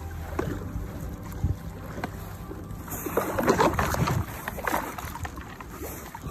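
Water splashing and lapping against a small sailing kayak's hull as it comes in toward a shingle riverbank. The splashing is louder and busier for about a second and a half near the middle.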